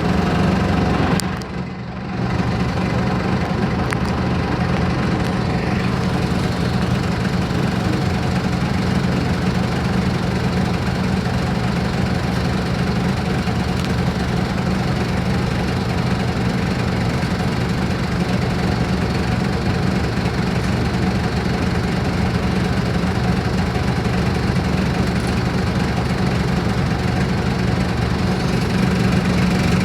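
Mercedes-Benz OF-1418 bus's diesel engine idling steadily, with a brief dip in level about two seconds in.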